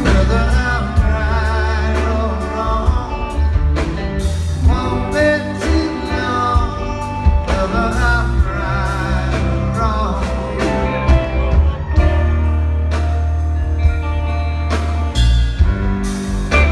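Live rock band playing with a lead vocalist singing: electric guitars, bass, drums and keyboards, heard from the audience in a theatre hall.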